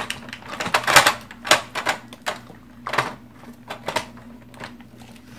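Hard plastic parts of a Dyson Ball Animal 2 vacuum clicking and knocking as an attachment is pushed and wiggled onto it, lining up its tabs: a series of irregular sharp clicks, the loudest about a second in, again half a second later, and about three seconds in.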